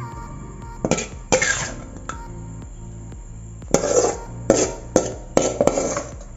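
Steel spoon scraping and clanking against a metal kadai and a steel mixer jar as sautéed onion and tomato are scooped across, with a few sharp clinks early and a quick run of them in the second half, over background music.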